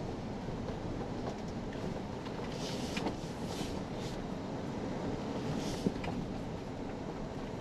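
Low, steady rumble of a Toyota Tundra TRD Pro pickup rolling slowly over a rough dirt trail, heard from inside the cab, with a few brief hissing swishes and a couple of sharp knocks, about three seconds in and again near six seconds.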